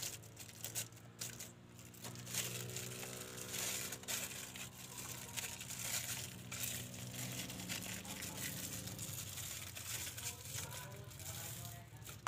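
Thin clear plastic crinkling and rustling in the hands as it is wrapped tightly around an engine sensor connector, with a faint steady low hum underneath.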